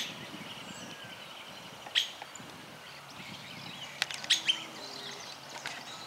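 Streaked flycatcher giving short, sharp calls: one at the start, one about two seconds in, and a quick cluster of three or four around four seconds in, over faint chirping.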